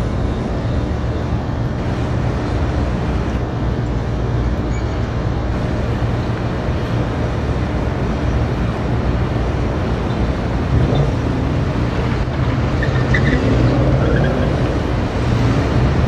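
Steady rumble of city road traffic, getting a little louder from about ten seconds in.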